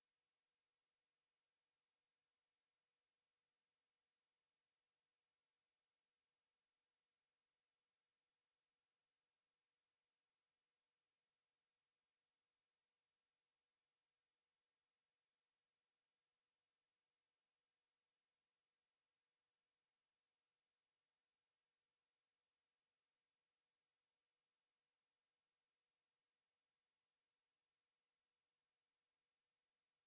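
A steady, very high-pitched pure sine-wave test tone at 11881 Hz, held unbroken at one pitch and level.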